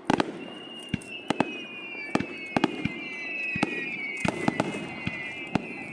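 Fireworks display: aerial shells bursting in sharp, irregular bangs, with several high whistles falling slowly in pitch over a few seconds from about half a second in.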